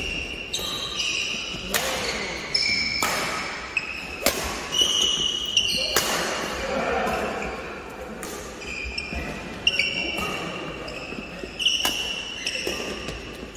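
Badminton rally: racket strings striking the shuttlecock about every second or so, with a quieter stretch in the middle, and court shoes squeaking on the gym floor between the hits.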